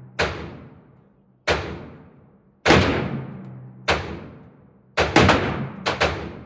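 AR-10 rifle firing .308 Winchester rounds, a string of sharp shots each followed by a long echoing tail. The first few come about a second apart, then several follow in quick pairs near the end.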